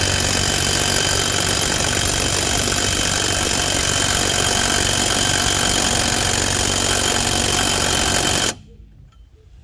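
Impact wrench hammering continuously as it runs a lug nut down to pull a new wheel stud through the hub. The sound is loud and steady, then cuts off suddenly near the end.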